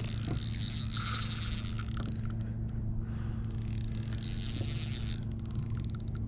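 Spinning reel's drag buzzing as a hooked fish pulls line off, in two long stretches with a short break about three seconds in, with bursts of fine clicking from the reel.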